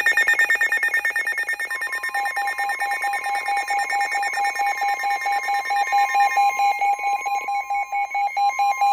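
Several NOAA weather radios sounding their alert alarms at once: rapid electronic beeping at a few different pitches, joined about two seconds in by the steady warning alarm tone. This is the alert that signals an incoming warning broadcast.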